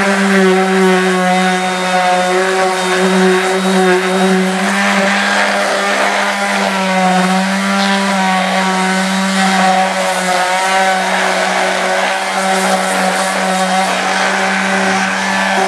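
Cordless electric power tool, a grinder or sander, running steadily on a wooden carving to smooth its sharp edges. Its steady motor hum wavers slightly in pitch in the middle as it works.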